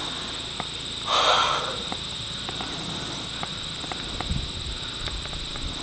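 A steady high-pitched drone of insects. About a second in a brief noisy rush sounds, and faint ticks are scattered throughout.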